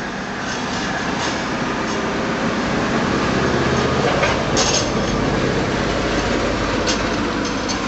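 A loud vehicle rumble that swells to a peak about midway and eases off toward the end, with a few sharp clicks.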